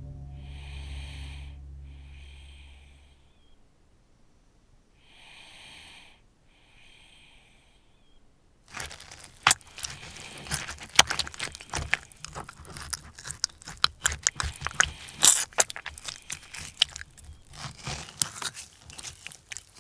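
Ambient music with a low drone and soft chime-like tones fades out over the first few seconds. About nine seconds in, dense, irregular crackling and crinkling clicks begin and continue, louder than the music.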